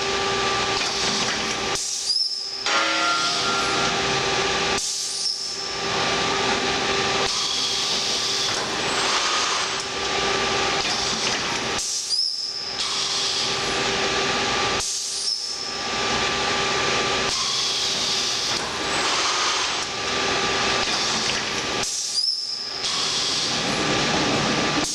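Sencorp 2500 roll-fed thermoformer running through its cycles: a steady rush of air hiss from its pneumatics, with brief breaks every few seconds as the machine cycles.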